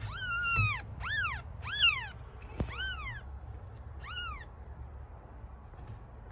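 Kitten mewing: five short, high-pitched mews, each rising then falling in pitch.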